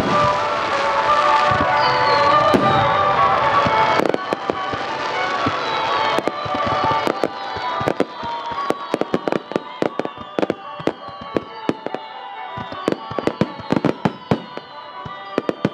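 Fireworks going off: a couple of low booms early, then a dense run of sharp crackling pops that grows thicker from about halfway, over background music.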